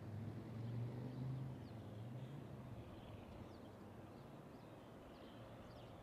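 Distant Norfolk Southern diesel freight locomotives running with a low drone that fades away over the first two or three seconds as the train passes, leaving faint wheel and track noise. Birds chirp briefly now and then.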